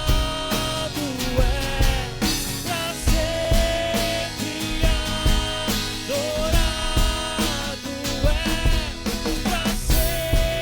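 Live worship band playing a rock-style passage between sung lines: a drum kit keeping a steady beat under a sustained melodic lead line with bent notes.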